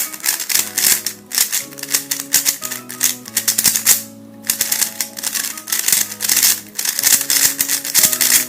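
Rapid clacking of a YJ YuLong V2M 3x3 magnetic speedcube being turned fast, with a short pause about four seconds in. Background music plays underneath.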